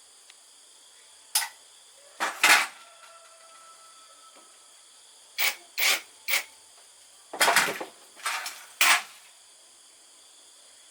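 About eight short scraping or rubbing strokes in irregular groups, with a steady high insect drone behind them.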